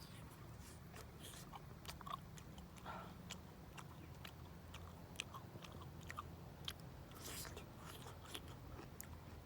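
Person biting and chewing food close to the microphone: quiet, irregular crunchy clicks and mouth sounds, over a steady low hum.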